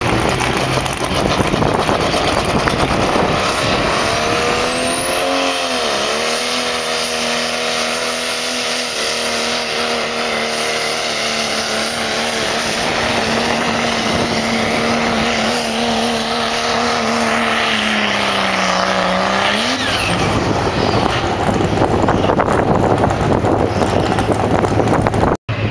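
Diesel pickup truck pulling a weight sled at full throttle: the engine holds a steady high pitch with a thin, very high turbo whistle over it, dips briefly early on, sags lower under the load and then drops away about twenty seconds in. A noisier, rumbling engine sound follows.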